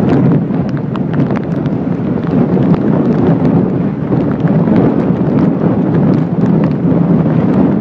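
Hurricane wind buffeting the microphone over storm surf washing through: a loud, unbroken low rumble with many small crackles throughout.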